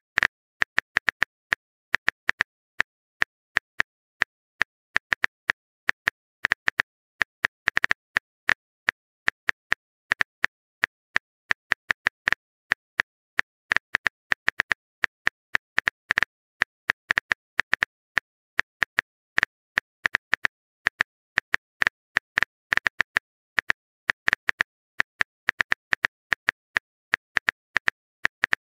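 Keyboard typing clicks of a texting-story app, one short click per letter as a message is typed out, at an uneven pace of several a second with short pauses.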